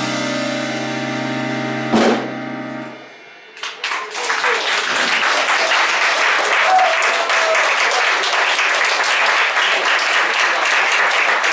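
A jazz piano trio's final chord on piano and double bass rings out, punctuated by a single hit on the drum kit about two seconds in, and fades away. From about four seconds in the audience claps in steady applause.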